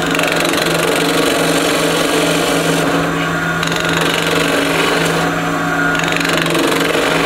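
Wood lathe running with a spindle gouge cutting into the spinning pendant blank: a steady motor hum under a rough, rapid rattling scrape. The cut is interrupted because the gouge meets an off-centre domed surface for only part of each turn. The cutting noise eases off briefly twice, about three and five seconds in.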